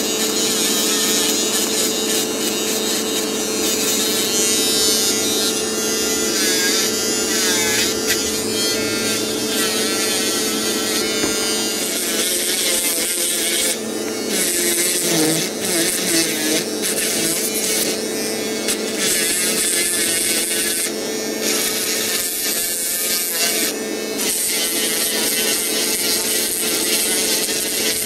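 Promed 520 de Luxe electric nail drill running with a steady whine as its bit files a false nail tip on a practice hand. A higher grinding hiss cuts in and out several times as the bit touches and lifts off the nail.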